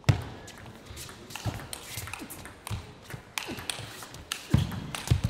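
Table tennis rally: the celluloid ball clicks sharply off the bats and table in quick, uneven succession. A few heavier low thuds are mixed in, the loudest right at the start and near the end.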